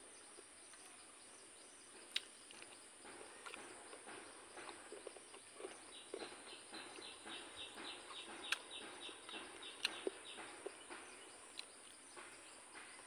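Faint hand-eating sounds: fingers pressing into rice and ticking against a steel plate, with a few sharper clicks. From about six seconds in, an insect chirps in a steady pulsed rhythm of about three chirps a second.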